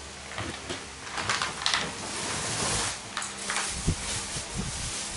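A hard plastic toy case being opened and the small plastic toys inside handled: light clicks and knocks, with a rustling hiss in the middle.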